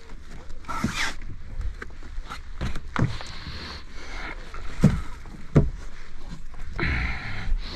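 Irregular knocks and thumps of fishing gear being handled aboard a small boat, with short rustling bursts about a second in and near the end.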